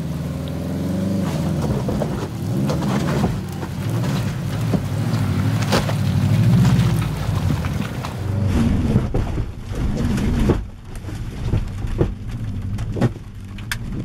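Subaru Forester XT's turbocharged flat-four engine revving up and down as the car crawls over a wet, rocky trail, with a steady hiss and scattered sharp clicks and knocks of stones under the tyres.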